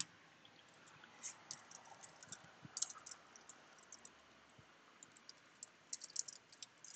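Faint typing on a computer keyboard: light keystroke clicks in short, irregular bursts.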